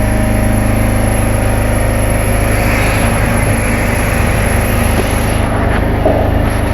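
An engine running steadily: a constant low-pitched drone.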